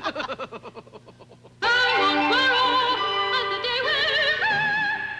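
A woman's laughter trailing off. About a second and a half in, a female operatic voice begins singing long held notes with vibrato, stepping to new pitches a couple of times.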